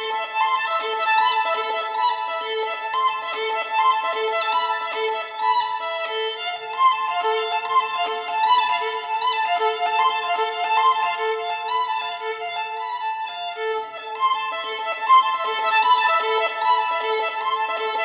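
Instrumental background music: a violin playing a quick, repeating run of notes.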